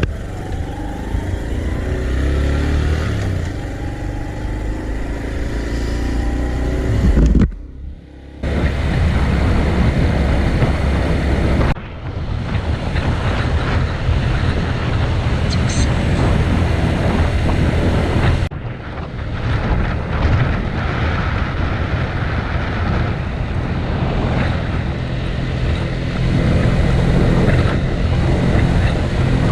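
Honda Cross Cub 110's small single-cylinder engine running while the bike is ridden, with road and wind noise; the engine pitch rises early on as it accelerates, and the sound breaks off abruptly a few times.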